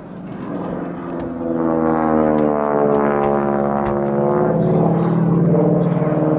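Harvard IIB's Pratt & Whitney R-1340 Wasp radial engine and propeller at display power, giving the type's harsh, buzzing rasp as it manoeuvres overhead. The sound swells about a second and a half in and then holds loud, its pitch slowly shifting.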